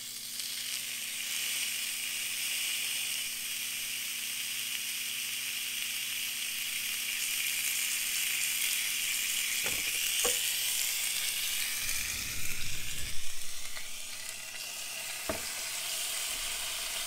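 Oiled New York strip steak sizzling on the hot plate of an electric George Foreman grill, a steady hiss. A few sharp clicks about ten seconds in, then a brief louder low rumble of handling at the grill a little after twelve seconds, with another click near the end.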